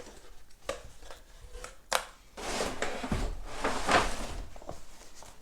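Ribbon and cardboard gift box being handled: a couple of light knocks, then a rustling, scraping slide that swells and fades over about two seconds.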